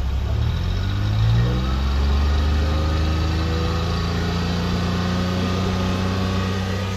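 Suzuki Khyber's G10 1.0-litre three-cylinder petrol engine running, heard at the exhaust tailpipe. It is revved up about a second in and then held at a steady raised speed.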